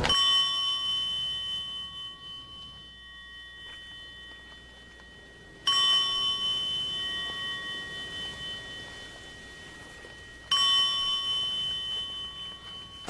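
A small metal Buddhist bell struck three times, about five seconds apart. Each clear, high stroke rings on and slowly fades. It is the kind of bell rung by the priest leading a funeral procession.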